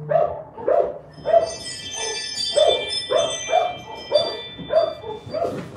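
A dog barking over and over in a steady rhythm, about two barks a second.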